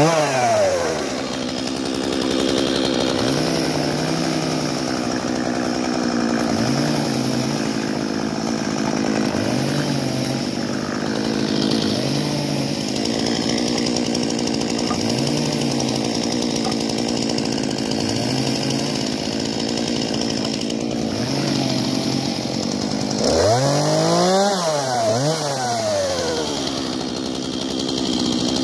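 Two-stroke Stihl chainsaw coming off a cut and dropping to a steady idle, then revved up and back down to idle about three-quarters of the way through.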